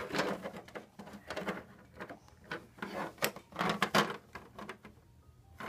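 Irregular knocks, taps and rustling of handling, with the loudest knocks a little past the middle.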